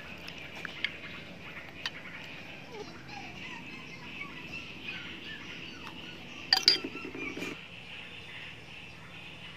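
Outdoor rural ambience: small birds chirping over a steady high hiss. There are three sharp clicks in the first two seconds and one brief loud burst about six and a half seconds in.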